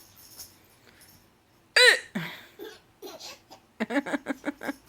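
A woman's single loud hiccup about two seconds in, followed near the end by a baby's quick run of laughter set off by the hiccup.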